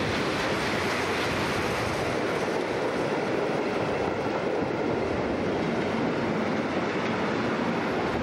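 Freight train's wagons rolling past close by: hopper, tank and box wagons going by with a steady noise of steel wheels running on the rails.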